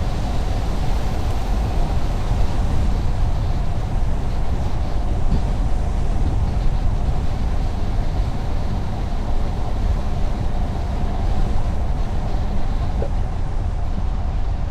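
Steady road noise of a car driving on a highway: a continuous low tyre and engine rumble with a faint steady hum.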